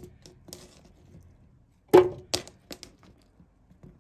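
Chopped cucumber pieces dropped into a blender jar. About two seconds in there is one sharp clunk with a short ring from the jar, then a second knock just after and a few light taps.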